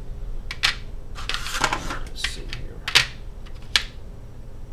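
Hands handling and rummaging through small hard objects: a handful of sharp clicks and a short rustle, with the loudest clicks about three and almost four seconds in.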